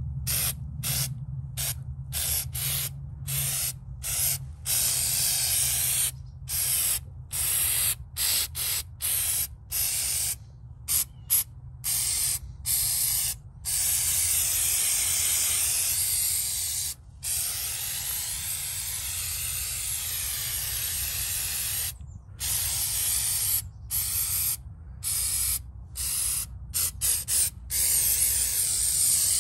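Aerosol can of spray-on rubber coating hissing as it is sprayed onto a latex prop, in many short bursts broken by brief pauses, with a few longer unbroken passes in the middle.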